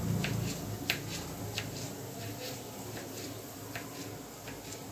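Knife cutting tomatoes on a plastic cutting board: irregular sharp taps, roughly one a second, the loudest about a second in.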